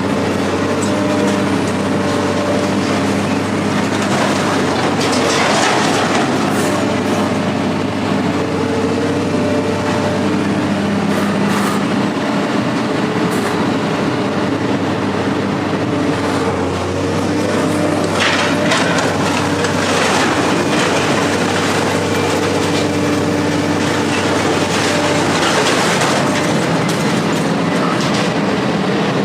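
A heavy vehicle engine running steadily, with loose metal rattling and clanking over it, louder in bursts a few times.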